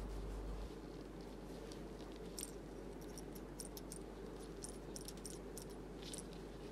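Faint scattered clicks and rustles of gloved fingers handling a tattoo needle in its plastic tube, over a steady low hum.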